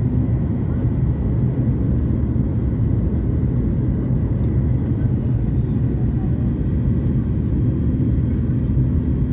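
Steady low rumble of a jet airliner heard inside the passenger cabin: engine and airflow noise during the descent.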